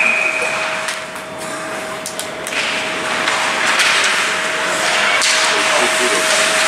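Game noise in a large indoor hall: a steady noise with a few sharp knocks and clacks, like sticks or a puck striking, and a faint steady hum underneath.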